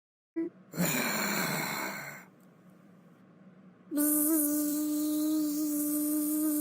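A voice making a breathy, sigh-like sound, then, after a short pause, a long steady hum held on one pitch.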